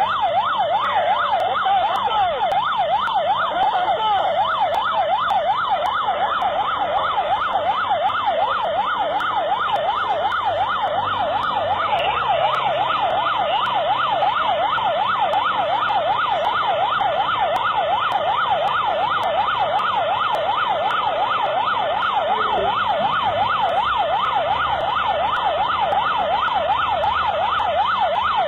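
Police vehicle siren on a fast yelp, its pitch rising and falling several times a second without a break, from the police vehicle chasing the moped rider.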